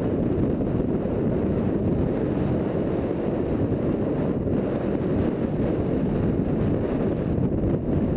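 Wind buffeting the microphone of a rider-worn camera on a galloping racehorse: a steady low rush with no break.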